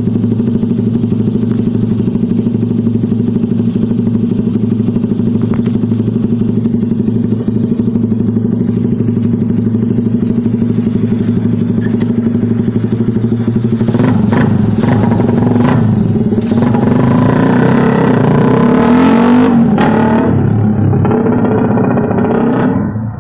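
Motorcycle with a round-type JEC Speed aftermarket exhaust pipe idling steadily with a fast exhaust pulse. About fourteen seconds in it is revved several times, the pitch rising and falling, before it settles back near the end.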